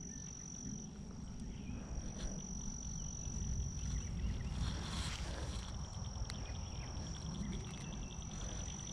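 An insect trilling in one steady high tone, over a low rumble and a few faint clicks.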